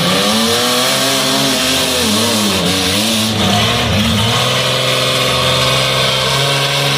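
Demolition derby cars' engines revving up and down, then running at a steady pitch from about halfway through.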